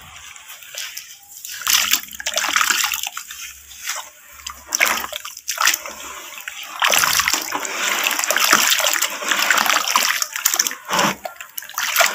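Hands squeezing and kneading soaked, crumbled yellow brick in a tub of muddy water: wet splashing and sloshing that comes in bursts, loudest about two seconds in and again from about seven to ten seconds in.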